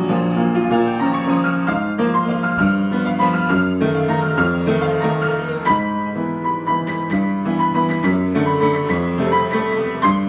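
Solo piano improvisation: flowing chords in the low and middle register under a higher melody, played continuously with many notes overlapping and ringing on.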